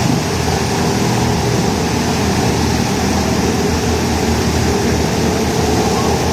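Bumper boat motors running steadily with water churning around the boats: a constant low engine hum under a dense wash of water noise.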